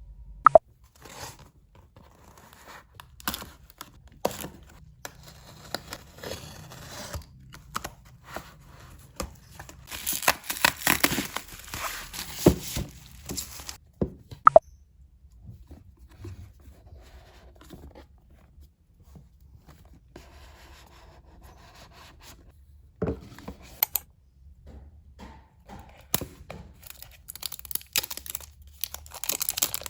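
Packaging being handled and torn open: scattered taps and clicks, with longer bouts of tearing and crinkling about a third of the way in and again near the end.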